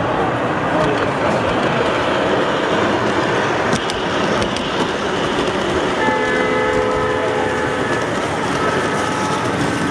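Model freight train with a diesel locomotive running close by, its wheels rolling steadily on the track. About six seconds in, a multi-note diesel horn sounds for about three seconds.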